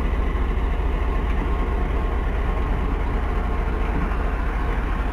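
GMCU-15 class diesel locomotive running as it shunts between tracks, a steady low rumble with even mechanical noise over it.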